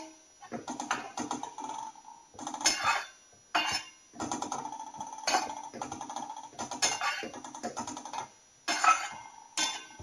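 A spatula scraping and stirring grated coconut around the inside of a dry kadhai, dry-roasting it. It comes in irregular runs of scraping strokes with short pauses between them, and the metal pan rings faintly under some strokes.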